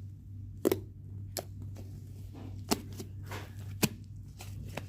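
Homemade slime being squished and poked by hand for ASMR, giving sharp little pops and clicks about once a second with soft crackling between, over a steady low hum.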